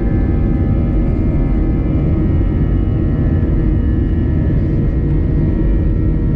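Airbus A320 jet engines heard from inside the cabin while the plane taxis: a loud, steady low rumble with several steady whining tones over it.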